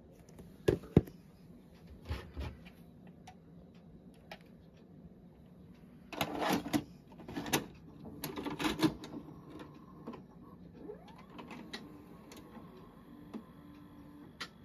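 Plastic clicks and knocks of a VHS cassette being handled, then a burst of clatter as the tape is pushed into a Pacific VCR's slot. After that the deck's loading mechanism gives a faint rising whir and a steady motor hum.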